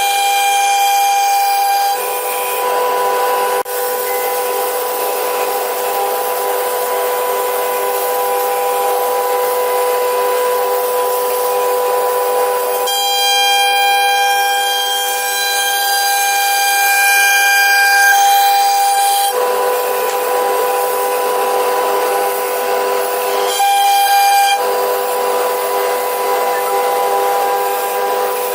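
CNC router spindle running with a steady high whine and the hiss of the bit cutting wood. The sound changes abruptly a few times.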